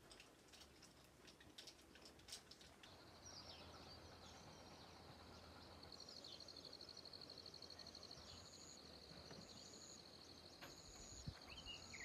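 Faint insect trill, a steady high rapid buzz that sets in about three seconds in, joined later by short higher chirps repeating every second or so; a few faint clicks before it.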